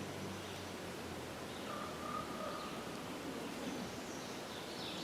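Steady outdoor background noise, a rustling hiss like wind through trees, with one faint short whistled bird call about two seconds in.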